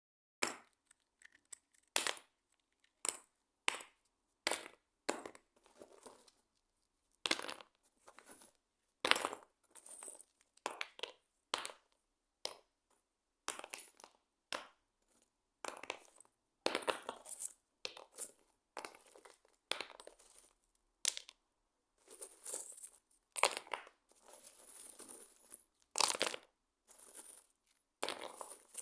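Stones knocking and clacking against each other in a long run of sharp, irregular clicks, with a few longer stretches of stone grinding and scraping against stone.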